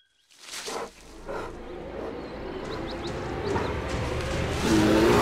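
Cartoon sound effect of a large wild animal growling from a dark den. It starts about half a second in and swells steadily louder.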